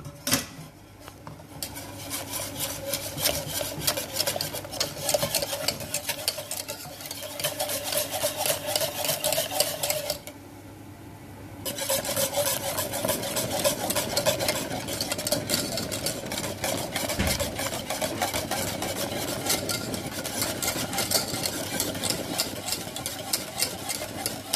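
Wire whisk beating custard of milk, egg yolks and cornflour in a metal pot, in fast continuous scraping strokes against the pot as it heats. The whisking stops for a second or two about ten seconds in, then carries on.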